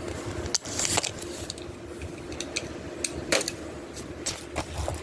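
Plastic shrink wrap crinkling and a DVD case clicking as a multi-film DVD set is unwrapped and handled: scattered short clicks and brief rustles, over a faint steady hum.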